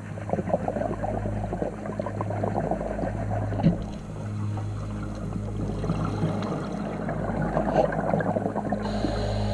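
Scuba regulator exhaust bubbles gurgling and crackling underwater in two long exhalation bursts, with a lull just under halfway, over a steady low hum.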